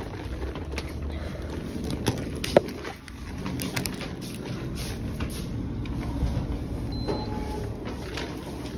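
Glass entrance doors being pushed open and swinging shut over a steady low rumble of walking and handling noise, with a few sharp clicks and knocks; the loudest click comes about two and a half seconds in. A brief faint high beep sounds about seven seconds in.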